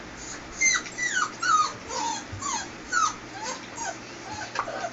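Puppy whimpering: a run of short, high cries, each falling in pitch, about two a second.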